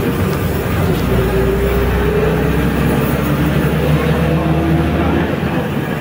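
City bus driving, with engine and drivetrain hum and road rumble heard from on board and a few steady tones drifting slightly in pitch. The low rumble eases off about five seconds in.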